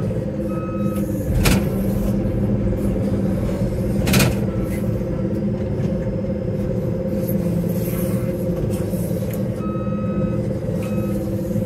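JCB loader's diesel engine running steadily, heard from inside the cab, with a reversing alarm beeping near the start and again near the end. Two sharp knocks stand out, about a second and a half in and about four seconds in.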